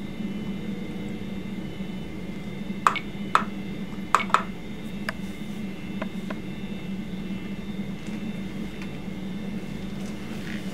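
Steady low room hum, with a handful of sharp clicks and light clinks a few seconds in, like small objects being handled.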